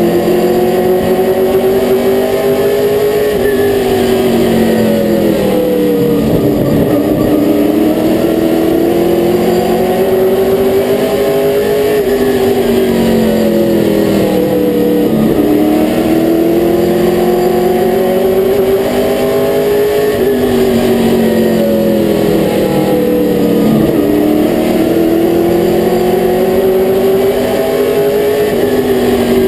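Limited late model stock car's V8 engine heard from inside the cockpit at racing speed. It climbs in pitch for several seconds along each straightaway, then drops sharply as the driver lifts into each turn, four times over, with steady road and tyre noise underneath.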